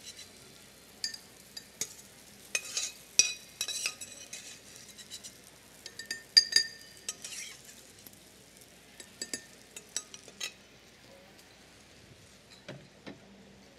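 A metal spoon scraping and clinking against a stainless steel skillet and a small ceramic crock as chopped asparagus is scooped from the pan, with scattered ringing clinks over a faint sizzle of oil. The clinking stops about ten seconds in, leaving only a couple of light taps.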